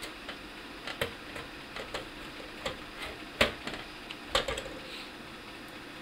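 Scattered light clicks and taps of screws and a screwdriver being handled against a metal PC case, with two louder knocks about three and a half and four and a half seconds in.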